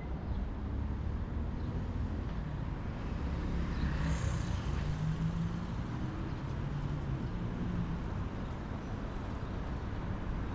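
Steady road traffic rumble, with one vehicle passing close about four seconds in, its engine hum lasting a few seconds.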